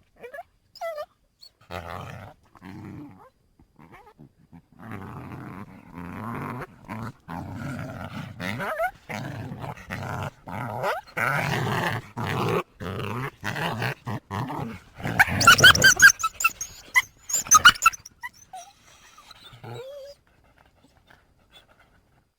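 Coyote vocalizing: a string of short, rough, low calls, breaking into a burst of high-pitched yips about fifteen seconds in, then falling quiet.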